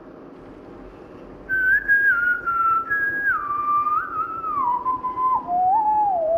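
A person whistling a slow song melody by mouth: one clear tone that comes in about a second and a half in and steps and glides downward through the phrase.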